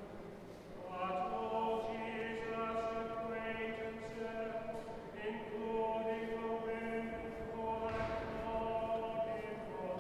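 Choir singing slow, chant-like music in long held notes that change every second or two, swelling in about a second in.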